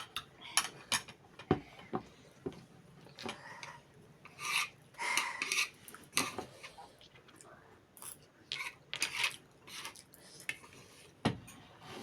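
Eating with cutlery at a plate: a spoon scraping and clicking against the dish, with chewing, in irregular short bursts.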